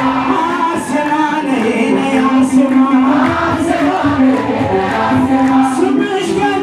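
Men singing an Ethiopian Orthodox mezmur (hymn), a lead male voice through a microphone with other men singing along.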